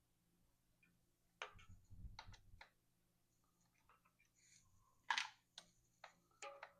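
Faint, scattered clicks and taps of hand work on a mountain bike's handlebar controls as the old brakes are taken off. About a dozen short clicks come irregularly, a few with a dull knock, the loudest about five seconds in.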